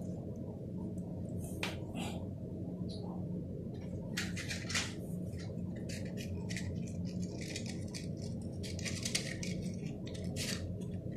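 Match head crackling and ticking irregularly as a green laser pointer's beam heats it, over a steady low hum. The crackles come thicker from about a third of the way in, the stage just before the match ignites.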